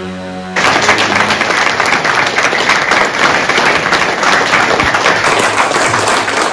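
A held music chord cuts off about half a second in, and loud applause from an audience, many hands clapping, takes over.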